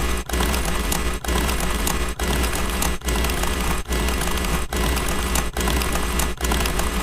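Loud, harsh, distorted noise sound effect with a deep hum under it, repeating in segments just under a second long, each broken off by a brief gap.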